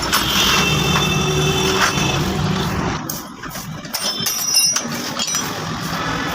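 A motor runs steadily for about three seconds, then stops abruptly; about a second later, short metallic clinks ring out.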